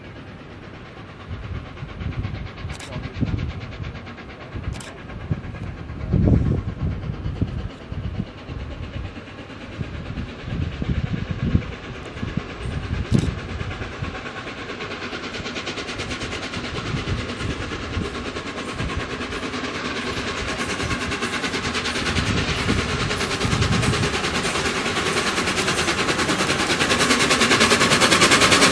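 Steam locomotive 60163 Tornado, a three-cylinder LNER Peppercorn A1 Pacific, approaching with a train, its exhaust beats growing steadily louder through the second half as it nears.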